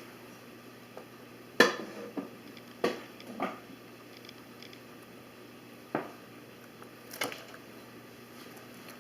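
About six light knocks and clatters of small objects being handled and set down on a hard surface, the loudest about one and a half seconds in and the last a little past seven seconds.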